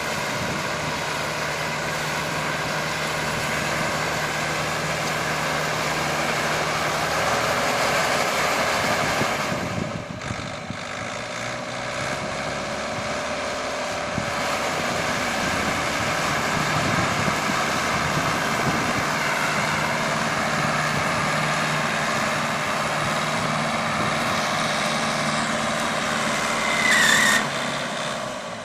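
Tractor engine running steadily, pulling a mini hay baler through wheat straw. A short, louder squeal bends in pitch near the end.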